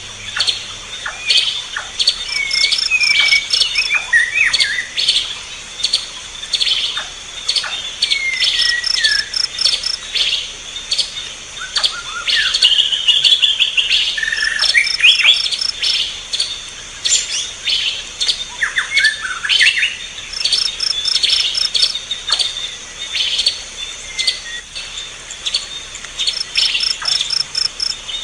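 Mixed birdsong of several birds: chirps and slurred whistled calls over a steady high insect drone. A short run of about six quick high notes repeats about every six seconds.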